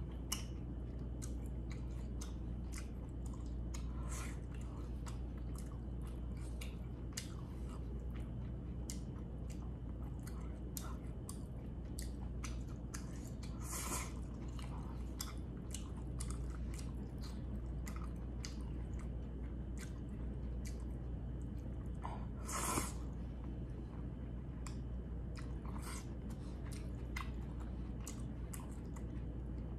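Close-up chewing and wet mouth clicks of a person eating beef bulgogi and noodles with chopsticks, over a steady low hum. Two brief louder noises stand out, about halfway through and about three quarters through.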